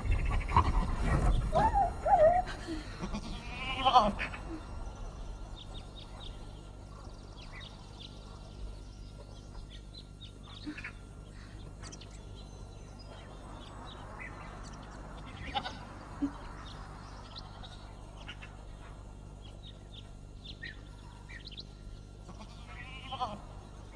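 Sheep bleating several times in the first four seconds and once more near the end, with faint bird chirps in between.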